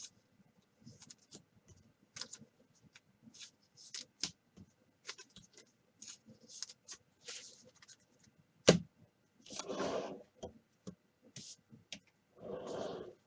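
Scattered light clicks, taps and soft rustles from small objects being handled on a desk. There is one sharper knock about nine seconds in, and two longer rustling sounds near the end.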